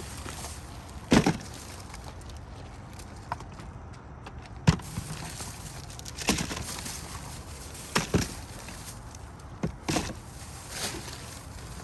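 Scattered, irregular knocks and thuds of objects being handled and set down, about eight over the stretch, with one sharper knock a little before the middle.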